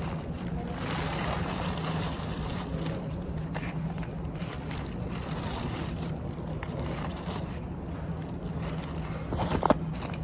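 Steady low background hum with faint scraping and handling sounds, and one brief sharp knock about nine and a half seconds in.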